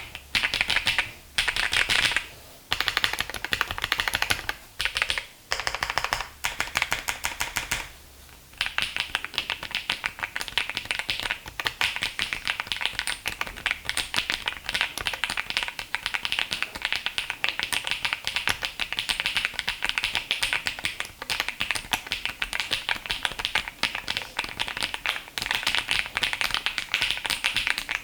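Typing on a Monsgeek M1 V5 mechanical keyboard with WS Black Arowana linear switches and MK Clear transparent ABS Cherry-profile keycaps: dense, clacky keystrokes with no click or bump. It comes in short bursts with brief pauses at first, then runs as continuous fast typing from about eight seconds in.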